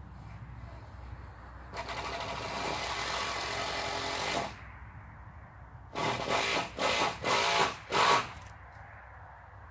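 A power drill running: one steady run of about three seconds, then, after a pause, four short bursts in quick succession, the last one the loudest.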